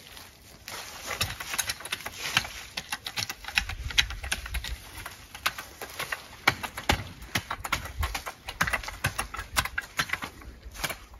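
Long-handled garden tool scraping and scratching through soil and dry leaves in quick, irregular strokes, working fertilizer into the ground around raspberry canes.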